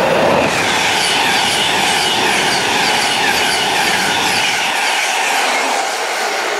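A train running past at speed, its wheels on the rails making an even, rhythmic clatter; the low rumble drops away about five seconds in.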